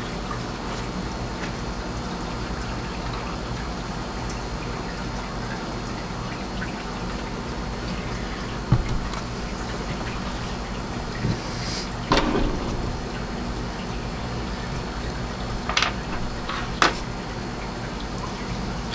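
Steady sound of running water, with a few light knocks and clicks partway through.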